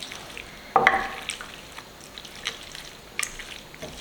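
A spoon stirring chicken into the hot, saucy roasted tomatoes and feta in a pan: wet, squelching food sounds with scattered scrapes and clinks, the loudest a sharp scrape a little under a second in.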